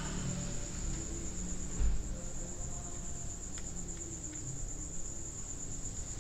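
Hands fitting a foam windscreen onto a clip-on lavalier microphone, handling noise: a low thump about two seconds in and a few faint clicks. A steady high-pitched trill runs underneath throughout.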